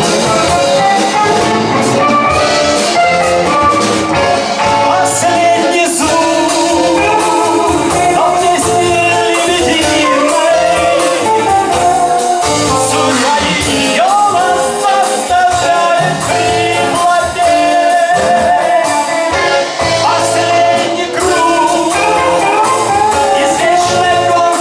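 A blues band playing live, with a lead melody line that bends and glides over the bass and drums.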